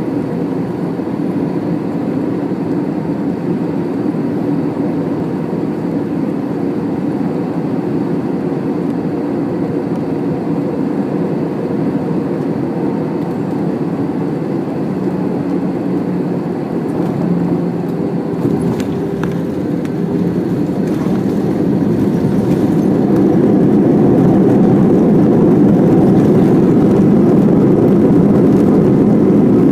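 Cabin noise inside an Airbus A320 landing: a steady low rush of airflow and engines, with a few light knocks about two-thirds through, then the rumble grows louder and holds, typical of touchdown followed by reverse thrust and braking on the runway.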